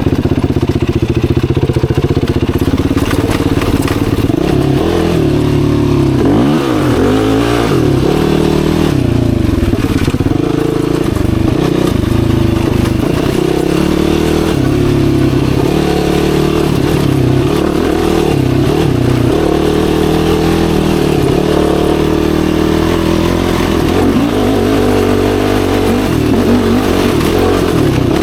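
Yamaha YFZ450R sport quad's single-cylinder four-stroke engine running under way, its pitch rising and falling again and again as the throttle is worked on and off.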